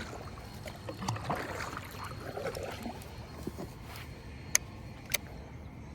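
Water sloshing lightly against a small fishing boat, with two sharp clicks a little over half a second apart near the end.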